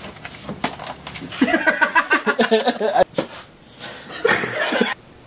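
People laughing in a small room, in a long burst of quick, pulsing laughter and then a shorter one. The sound cuts off suddenly near the end.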